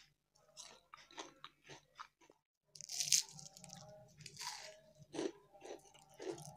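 Crisp crunching and chewing of fried besan pakoras (gram-flour fritters) close to the microphone. A run of short crunches, with the loudest bites about three and four and a half seconds in.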